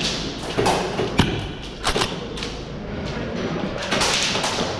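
Airsoft gunfire during close-quarters play: a few sharp cracks and thuds in quick succession in the first half, over a noisy background.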